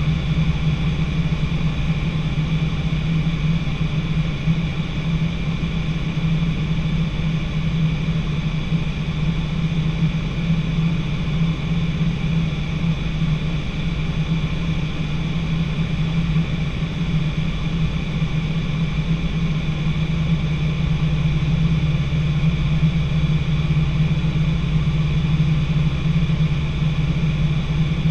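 A light training aircraft's engine and propeller drone steadily in cruise, heard inside the cockpit. The tone is even and constant, with a deep hum and a fainter high whine over it.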